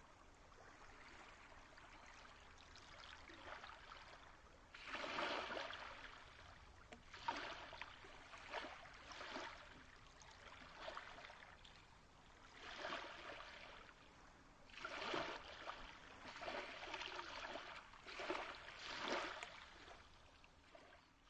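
Quiet ambient water sound effect: a soft hiss of moving water with gentle washes that swell and fade every second or two.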